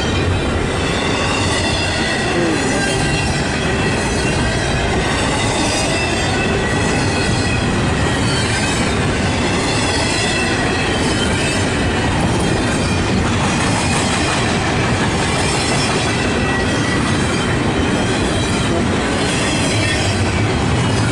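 A freight train's cars rolling steadily past close by, with a continuous rumble and thin, steady high-pitched wheel squeal.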